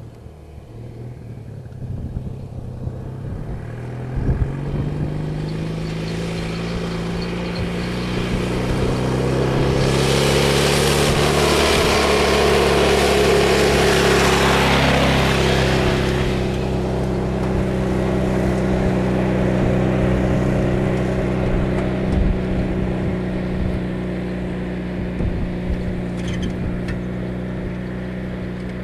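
Tractor engine working under load as it tows a paraglider aloft, its pitch rising in the first few seconds and growing louder as it comes close. It is loudest, with a rushing noise, for several seconds around the middle, then runs on steadily.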